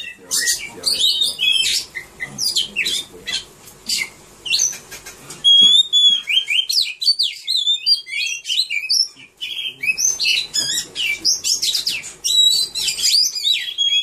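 Oriental magpie-robin singing: a varied, continuous run of clear whistles, rising and falling slurred notes and sharp chips, broken only by a few brief pauses.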